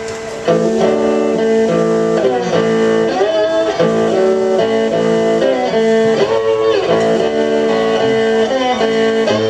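Blues guitar playing, coming in loudly about half a second in, with sustained notes and several bent notes.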